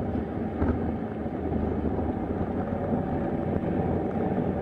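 Steady road and engine rumble of a car driving at freeway speed, heard from inside the cabin.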